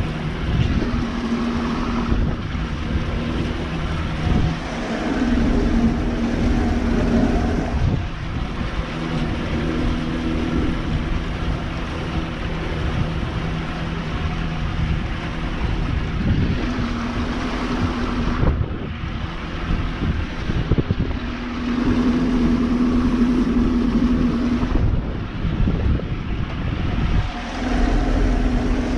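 Johnson two-stroke outboard motor running with the boat underway, its note shifting several times, over wind noise on the microphone and water rushing past the hull.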